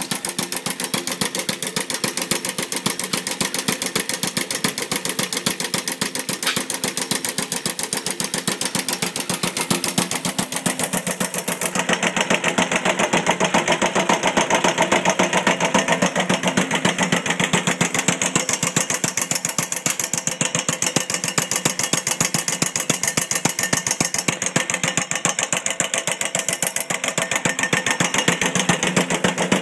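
Two-stroke engine of a converted Myers Bulldozer pump running steadily with a rapid, even beat.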